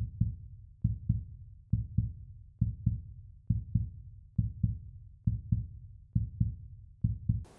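Heartbeat sound effect: paired low thumps, lub-dub, repeating steadily a little faster than once a second, with no other sound behind them.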